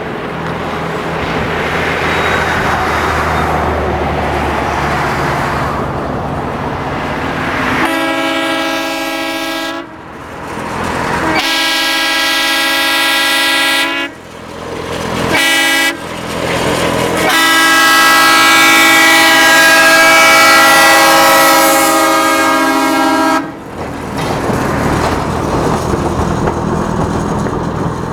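Fairmont A8d rail motorcar running by with its newly fitted multi-chime air horns blowing four blasts: two long, one short, then one long one held about six seconds, the grade-crossing warning pattern. The car's engine running is heard before and after the horns.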